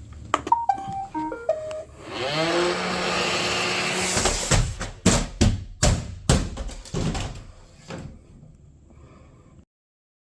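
A robot vacuum plays a short series of beeping start-up tones, its suction motor spins up with a rising whine, and then it tumbles down stairs in a quick run of hard knocks and clatters.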